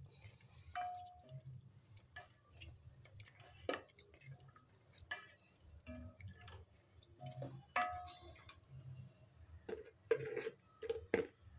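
A black spoon stirring mutton and thick masala in ghee in an enamel pot, giving irregular scrapes, soft knocks and clicks against the pot's sides and bottom. This is the bhuna stage, the meat and masala fried in ghee after the cooking water has dried off.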